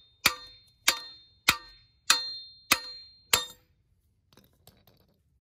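Steel claw hammer striking directly on a rusty 1995 Honda Civic front wheel hub seated in its spindle: six sharp metal clangs a little over half a second apart, each ringing briefly, as the hub is driven out of the knuckle. A couple of faint light clicks follow.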